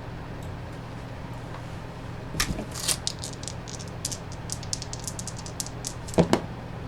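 Dice rattling with quick little clicks for a few seconds, then two sharp knocks as they land, over a steady low electrical hum.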